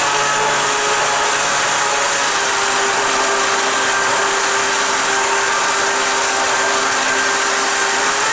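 Jet surfboard's electric jet drive, a brushless motor run through ESCs, running steadily under throttle: a steady motor whine over the rush of churning water from the pump. The whine drops slightly in pitch about two seconds in.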